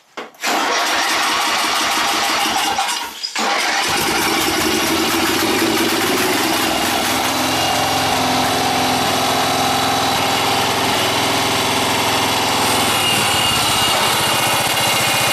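A riding lawn mower's engine is cranked over for about three seconds, then catches after a brief pause, about four seconds in, and settles into a steady run.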